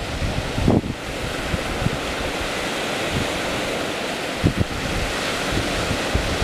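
Wind buffeting the microphone over a steady rush of surf, with low gusting thumps about a second in and again past the middle.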